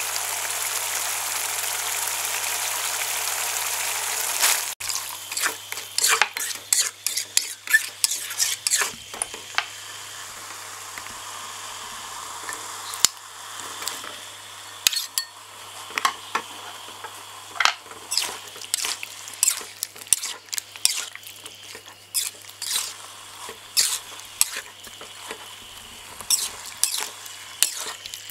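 Spiced sauce boiling in a wok with a steady hissing bubble. A little under five seconds in it changes abruptly to a metal spatula scraping and knocking against the aluminium wok in irregular strokes as sliced jengkol is pushed in and stirred through the sauce.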